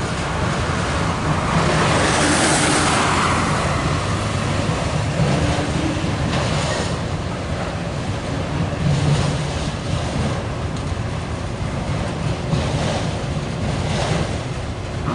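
Loaded CSX autorack freight train rolling past, a steady rumble of steel wheels on the rails, with a louder hissing swell about two seconds in.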